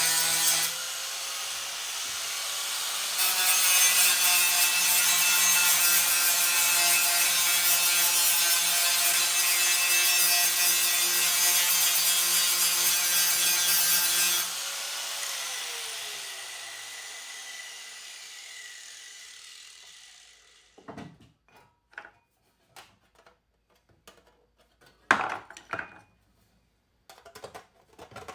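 A high-speed power tool runs loud under load, eases back about a second in and bears down again around three seconds. About halfway through it is switched off and its motor spins down with a falling whine over several seconds. Scattered clicks and knocks of tools and parts being handled follow.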